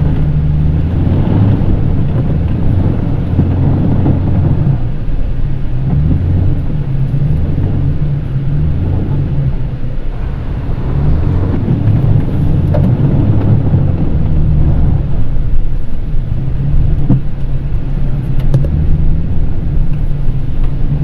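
Mitsubishi Triton pickup's diesel engine heard from inside the cabin, pulling hard off-road. Its revs rise and fall again and again, with a low rumble from the body. The level dips briefly about halfway through.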